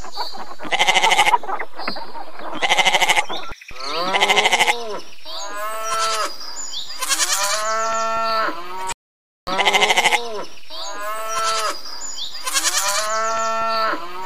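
Sheep bleating: a string of separate bleats, some quavering and some bending in pitch, about one every one to two seconds, with a brief dropout about two-thirds through.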